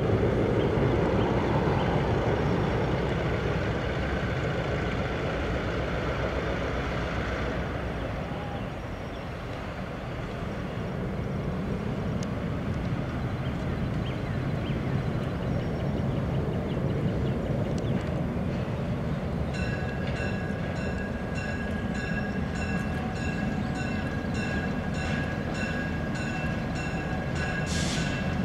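EMD GP7 diesel locomotive with its 16-cylinder two-stroke engine running as it approaches at low speed with a passenger train. About two-thirds of the way in, a bell starts ringing in a steady rhythm.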